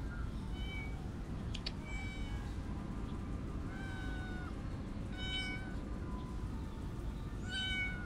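Stray cat meowing repeatedly: about five short meows one to two seconds apart, the one about four seconds in drawn out longer, over a steady low background rumble.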